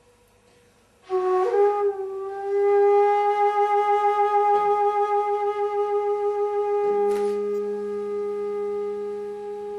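Music: a single long held note with a regular wavering vibrato enters about a second in, and a lower steady note joins it about seven seconds in.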